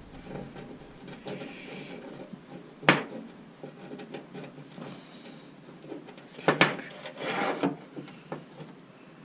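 Steering tie rod and tie rod end being turned and handled by hand: light rubbing and small clicks, one sharp knock about three seconds in, and a burst of clattering knocks around six and a half to seven and a half seconds.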